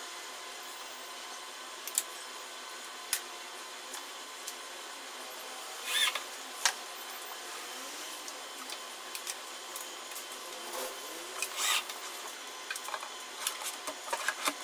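Scattered metal clicks, knocks and short scrapes from metal drawer slide channels being handled and fitted inside a cabinet, with two brief sliding swishes about six seconds in and near twelve seconds, over a steady hiss.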